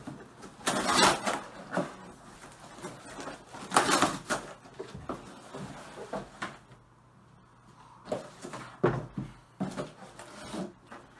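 Cardboard box being torn open and unpacked by hand: tearing and rustling cardboard in a few loud bursts, the loudest about a second in and about four seconds in, then lighter crackles and knocks as the pieces are pulled out.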